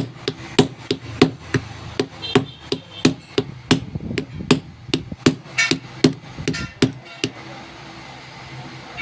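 Hammer tapping on a Hyundai i20's metal ignition lock, about three sharp strikes a second, some with a short metallic ring; the tapping stops about seven seconds in.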